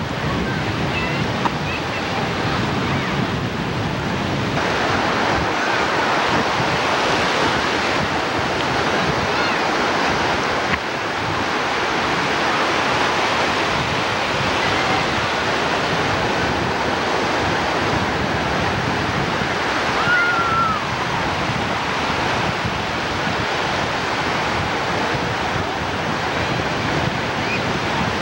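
Ocean surf breaking and washing up the shallows, a steady rushing wash of waves.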